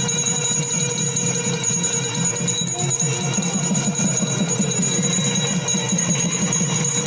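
Music with steady jingling percussion.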